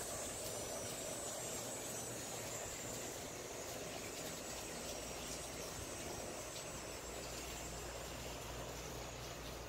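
Steady outdoor background noise with no distinct events: an even hiss with a faint high-pitched edge and a low hum underneath.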